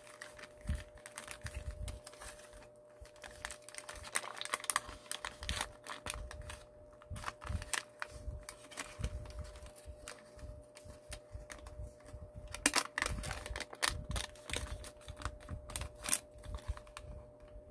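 Origami paper being folded and creased by hand: irregular crisp clicks and light rustles as fingers press folds flat, busier from about twelve seconds in.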